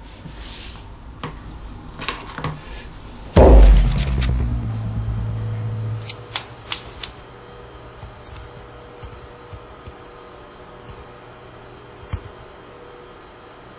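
A loud thud about three and a half seconds in, its low rumble fading over about two seconds, followed by scattered sharp clicks.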